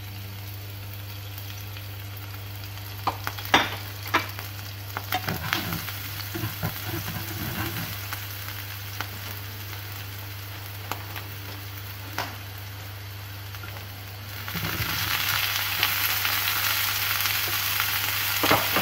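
Minced garlic sizzling quietly in hot oil in a nonstick frying pan, with a few clicks and scrapes of a utensil on the pan. About fifteen seconds in, sliced onions go into the pan and the sizzling becomes much louder and denser. A steady low hum runs underneath.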